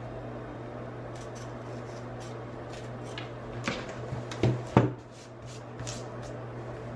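Heavy Gingher shears snipping through fabric with scattered short clicks, and two louder sharp knocks a little past the middle as the plastic embroidery hoop is shifted on the table, over a steady low hum.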